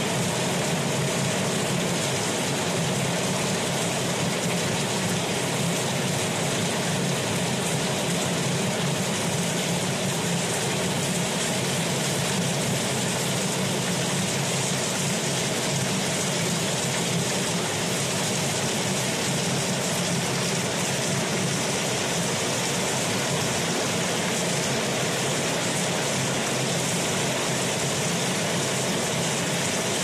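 Water gushing from the open end of a PVC pipe and splashing onto the ground below, a steady, unbroken rush.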